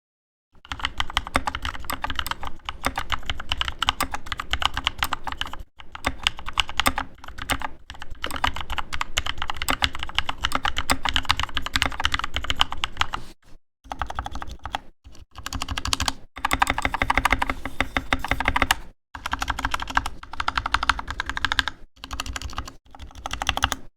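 Fast typing on a GK61 hot-swap keyboard fitted with NovelKey Cream linear switches and lubed stabilizers: a dense run of quick key clacks, broken by a few short pauses.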